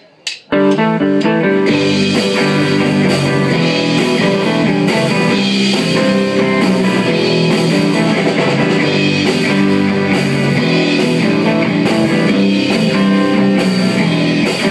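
Rock band starting a song live. Drumstick count-in clicks end, and an electric guitar riff begins alone about half a second in. The drum kit with cymbals joins a little over a second later, and the band plays on at a steady loud level.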